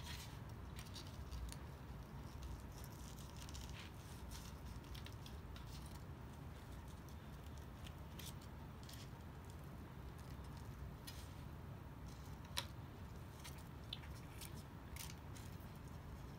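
Faint handling sounds of small craft work: scattered light clicks, scrapes and rustles as straight pins and a paper pattern are pulled from a cut piece of foam. One sharper click comes about three-quarters of the way through.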